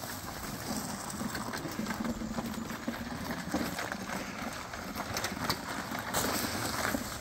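Shoprider TE889NR mobility scooter driving over loose gravel: the tyres crunch and crackle on the stones, with a faint steady hum from its electric drive motor.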